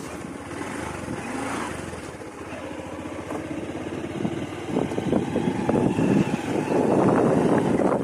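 Motorcycle engine running while being ridden, growing louder about halfway through.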